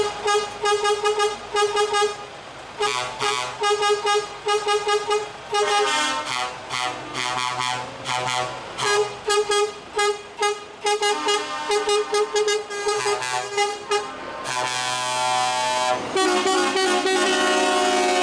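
Truck air horns sounding in many short, rapid toots, some at a lower pitch, then one long held multi-tone blast from about 14 seconds in.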